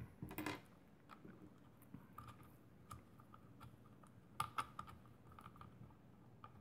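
Faint clicks and light knocks of hard plastic parts being handled, as a plastic holster and its paddle attachment are fitted together with a screw; a small cluster of clicks comes about four and a half seconds in.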